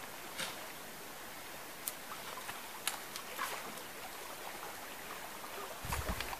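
Faint clicks and clinks of an MSR WhisperLite camping stove and its fuel bottle being handled, over a steady outdoor hiss. Near the end a run of rhythmic low thuds begins.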